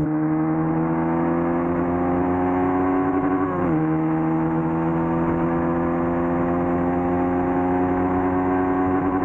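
Motorcycle on its stock exhaust, pulling under steady acceleration: the engine note climbs slowly, drops sharply with an upshift about three and a half seconds in, then climbs again.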